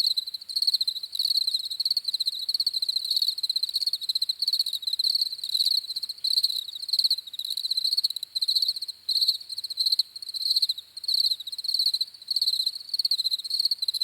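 Crickets chirping: continuous high-pitched trills, repeated about twice a second.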